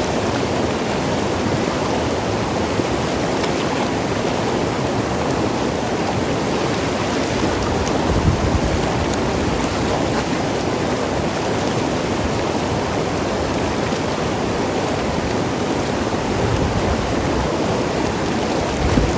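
Mountain river flowing and gurgling over rocks, a steady rush of water with a brief deeper surge about eight seconds in.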